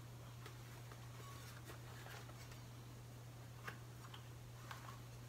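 Very quiet: a steady low hum with a few faint, light ticks from hands handling a bicycle inner tube and its valve stem at the wheel rim.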